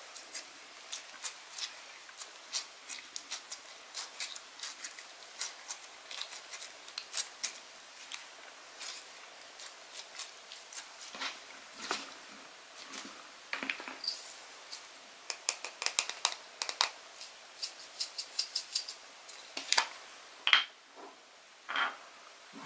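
Slime being squeezed and poked by hand, making a rapid, irregular run of small sticky clicks and pops that comes thickest about two-thirds of the way through.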